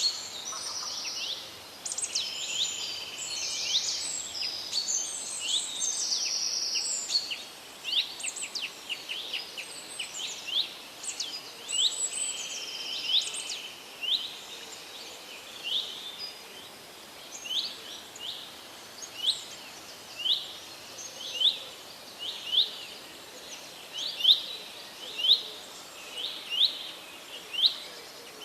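Forest birdsong. For the first several seconds a few birds call over one another with trills and buzzy notes. After that, one bird repeats a short, sharp chirp about once a second, over a faint steady background hiss.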